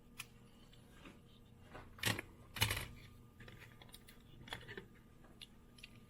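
Light clicks and taps of small die-cast metal toy cars being handled, with two louder clacks a little after two seconds and near three seconds.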